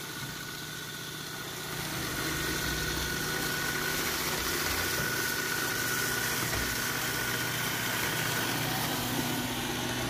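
Roomba s9 robot vacuum running while edge-cleaning along a baseboard: a steady motor whine with a hiss over it, growing louder about two seconds in.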